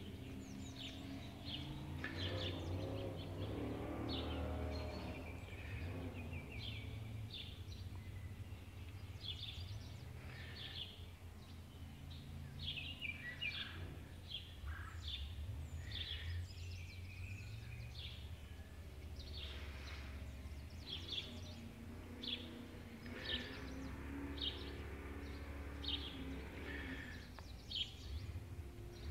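Birds chirping repeatedly in short high calls over a low steady rumble of outdoor background noise.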